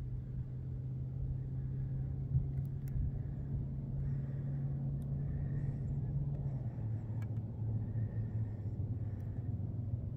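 A vehicle engine running with a steady low hum that drops in pitch about two-thirds of the way through.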